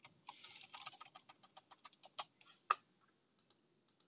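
Computer keyboard typing: a quick run of keystrokes with one louder key press about two-thirds of the way through, then the typing stops.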